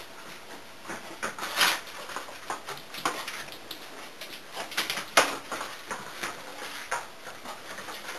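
Irregular light taps and rustles of a small pet's paws on a hard floor as it moves about, with a few sharper knocks.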